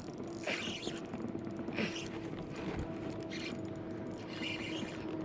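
Fishing reel being cranked on a retrieve: a steady mechanical whir with scattered clicking.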